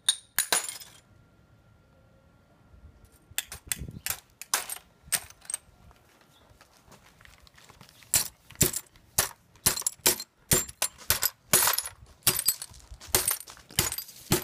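A hammer striking pieces of glass in an aluminium foil pan, smashing them smaller. Sharp clinking cracks come twice at the start, then after a short pause in a steady run of about two blows a second.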